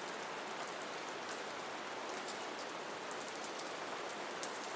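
Steady soft rain falling, with scattered individual drop taps.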